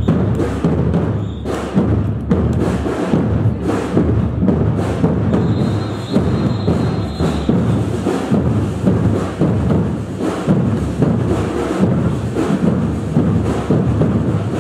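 Batucada drum group playing: a loud, dense street percussion groove with a regular heavy beat.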